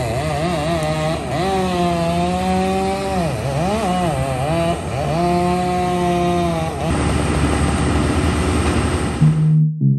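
Wood chipper's engine under load as branches are fed in, its pitch repeatedly dipping and recovering as it bogs on the wood, turning to a rougher grinding about seven seconds in. It cuts off suddenly near the end, where electronic music starts.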